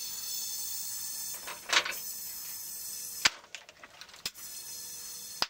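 Compressed air hissing steadily through an air chuck into a motorcycle tire's valve stem, inflating the freshly mounted tire to its working pressure. The hiss is broken by a few sharp clicks around the middle.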